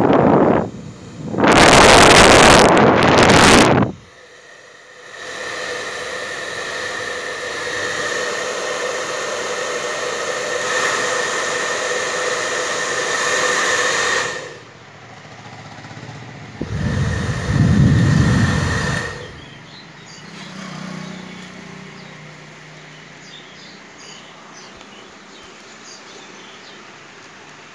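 Chaoba 2800 hair dryer. A loud blast of air hits the microphone about two seconds in. The dryer then runs steadily for about nine seconds, a rush of air with a steady motor whine. A second loud, low blast of air on the microphone comes near eighteen seconds in, after which the sound falls to a much quieter level.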